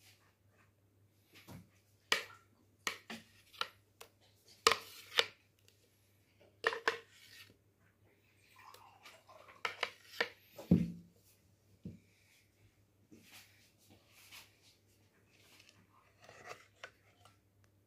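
Irregular short scrapes, clicks and wet squishes from churned butter being handled in a steel mesh strainer, with a few sharper knocks against the metal about two, five and eleven seconds in.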